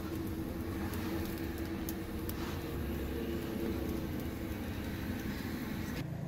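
Wood cooking fire crackling a few times, with single sharp clicks, over a steady low rumble.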